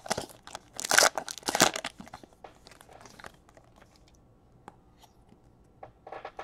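Foil trading-card pack wrapper being torn and crinkled, loud and crackling for about the first two seconds, then fading to soft rustling and a few light clicks as the cards are handled.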